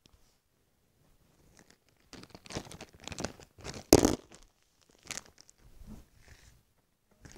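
Rustling and crinkling handling noise in several bursts, the loudest about four seconds in.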